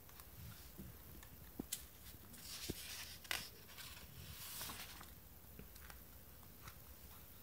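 Quiet room tone with a few faint clicks and soft rustling, like small handling noises.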